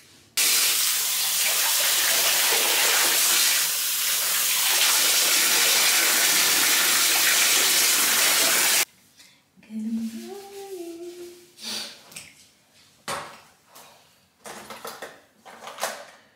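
Water running from a bathtub tap into the tub, a steady loud splashing rush that cuts off suddenly about nine seconds in. A few scattered knocks follow.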